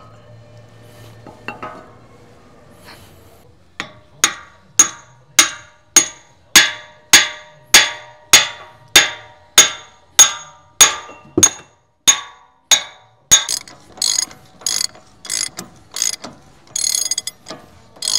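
Sharp metallic clicks in a steady rhythm, a little under two a second, each with a short ring, from hand-tool work on steel parts. Near the end they come faster and rougher.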